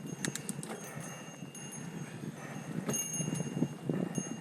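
Mountain bike rolling over a rocky dirt trail: tyres crunching and the bike rattling, with a few sharp clicks near the start. A small bell rings lightly now and then, most clearly about three seconds in.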